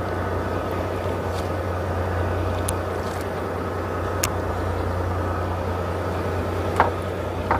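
Fishing boat's engine running steadily, a low hum under a wash of water and wind noise, with a few short clicks, the sharpest near the end.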